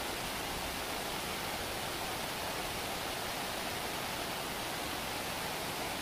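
Waterfall: water pouring steadily over rocks as an even rushing noise.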